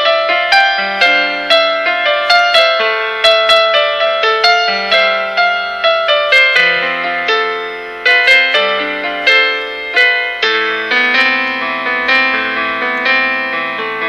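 Background piano music: a steady melody of struck notes, about two a second, each fading after it is played.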